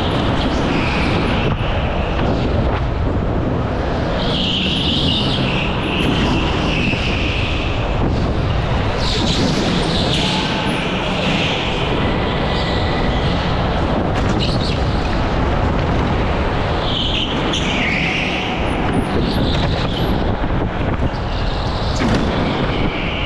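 Onboard sound of an indoor rental go-kart at racing speed: a steady rush of wind and kart noise, with a higher hiss or squeal swelling and fading several times through the lap.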